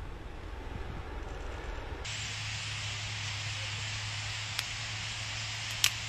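Low wind rumble on the microphone, then about two seconds in an abrupt change to a steady hiss over a low hum, with two short sharp clicks near the end.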